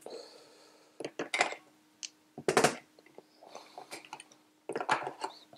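Plastic battery holder and AA cells being handled and pulled out of a clamp meter: a series of short clicks and clatters, with a louder clack near the middle and a run of small knocks near the end, over a faint steady hum.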